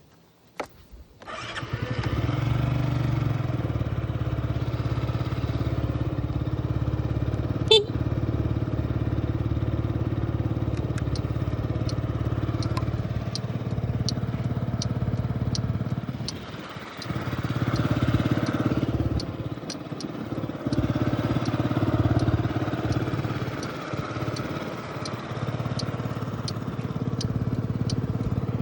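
Yamaha Jog (SA36J) scooter's small four-stroke engine starting after a couple of clicks and then idling steadily. There is one sharp knock about eight seconds in, and the engine note dips and picks up again a few times in the second half, with a faint regular ticking, about one and a half ticks a second, from about ten seconds in.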